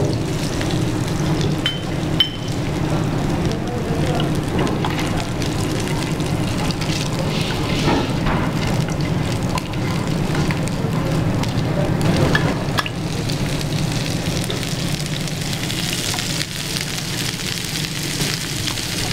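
Sliced onions and coconut flakes sizzling steadily in hot coconut oil in a frying pan, with a few clicks of the spatula against the pan as they are stirred.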